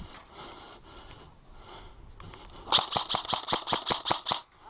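Airsoft electric rifle firing a rapid string of shots, about ten a second, for nearly two seconds starting a little past halfway; before that only low background noise.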